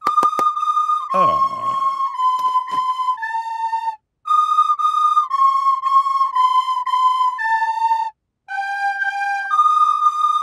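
Recorders playing a simple tune of steady held notes, one after another, with short breaks about four and eight seconds in.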